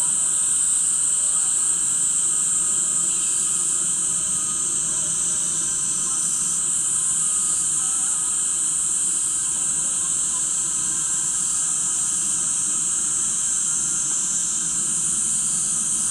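Steady high-pitched buzzing chorus of insects, unbroken throughout and stepping slightly in level a couple of times.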